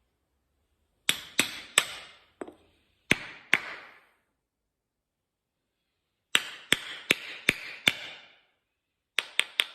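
Hammer strikes on metal in several quick runs of two to five blows, with short pauses between runs, each blow ringing briefly.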